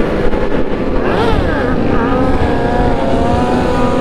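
Sport bike engines running, with one bike revving up and back down about a second in.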